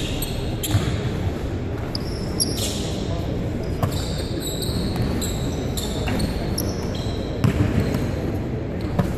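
A basketball bouncing on a hardwood gym floor, with a quick run of three bounces near the end, and sneakers squeaking on the court in short high chirps over the hum of a large hall.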